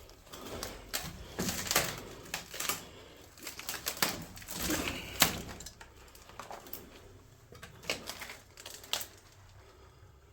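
Footsteps and handling noises: an irregular run of clicks, knocks and scrapes, the sharpest about five seconds in, thinning out over the last few seconds.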